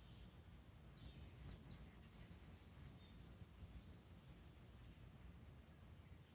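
Faint high-pitched bird chirps, with a quick trill about two seconds in, over near-silent room tone.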